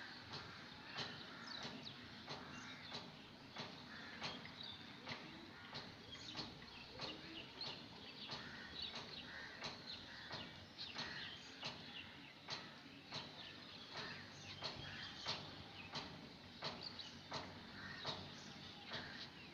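Faint irregular clicks, about one or two a second, from a crochet hook and thread being worked by hand as stitches are made.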